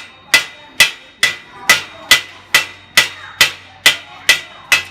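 A chipping hammer striking a steel weld plate in a steady rhythm, a little over two blows a second, each with a short metallic ring, knocking slag off the freshly laid arc-welding bead.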